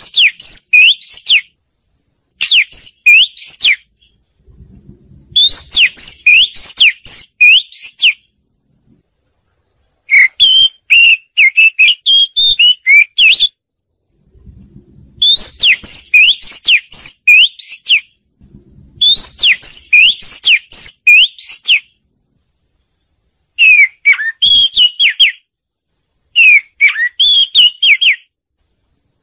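Oriental magpie-robin singing: loud phrases of clear whistled notes that slide up and down, about eight phrases separated by short silent pauses.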